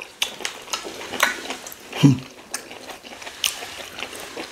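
Close-up chewing and lip-smacking of people eating mouthfuls of fufu and egusi soup by hand: a run of short wet clicks and smacks, with a short low vocal sound about two seconds in.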